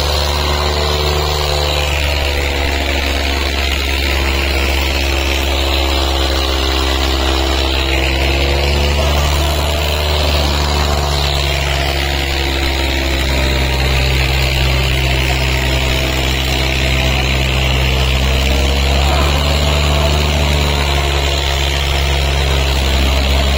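Two tractors' diesel engines running flat out under heavy load as they pull against each other in a tug-of-war: a loud, steady drone whose pitch rises and falls slightly as the load shifts.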